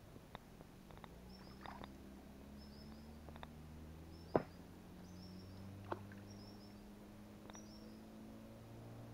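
Faint, steady hum of a distant motorboat engine, joined by a bird repeating a short high chirp about once a second. A few sharp knocks and clicks come from handling gear in the boat, the loudest about four and a half seconds in.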